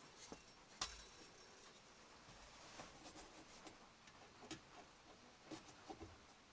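Near silence with a few faint, scattered clicks and light taps, about one every second or so, the loudest about a second in: small parts of a new wall thermostat being handled.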